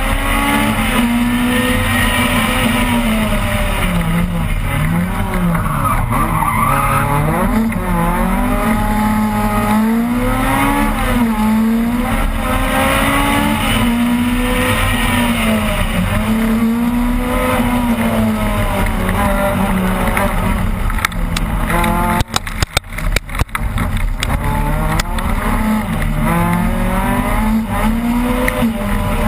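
Opel Kadett rally car engine heard from inside the cabin at full pace, its pitch repeatedly climbing under acceleration and dropping at each gear change or lift. About three-quarters of the way through, the sound breaks up in several brief gaps.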